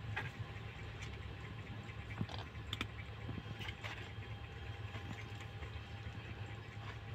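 Kittens scuffling on a tiled floor against a cardboard box: scattered light taps and scratches over a low steady hum.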